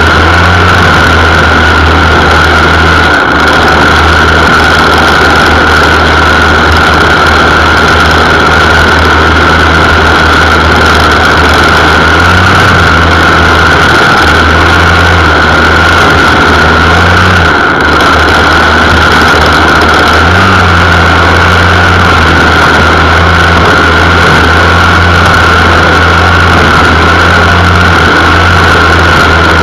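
Gas lawn mower engine running steadily under load while mowing grass, loud and close to the microphone, with slight shifts in its note a few times.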